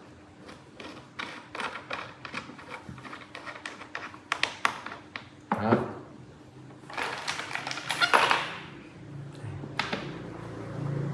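Irregular clicks and taps of small metal screws and cat-tree parts being handled during assembly, coming quickly for the first five seconds or so. About seven seconds in, a louder voice-like sound lasts a second or so.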